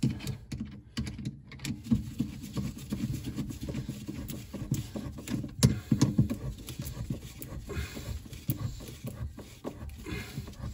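Flathead screwdriver tightening a hose clamp on a corrugated dishwasher drain hose fitted to a brass tailpiece: irregular small clicks and scraping, with rustling of the hose and gloved hands.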